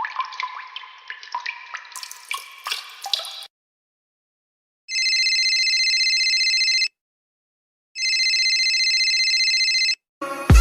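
Water dripping in quick plinking drops for about three and a half seconds. Then a telephone rings twice, each ring about two seconds long with a pause of about a second between them.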